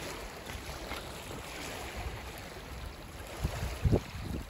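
Small waves lapping at a shingle shore under a steady wash of wind. Near the end, a few low thumps of wind buffet the microphone.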